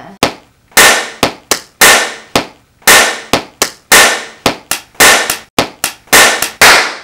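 A person clapping hands hard close to the microphone, about twenty sharp claps in an uneven rhythm, each ringing briefly in the room.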